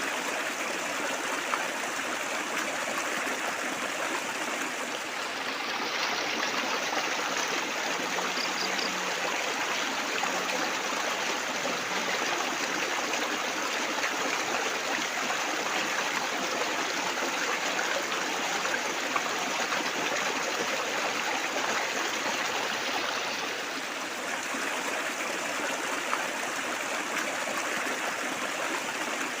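Running water trickling and splashing steadily, an even rushing hiss with no pauses.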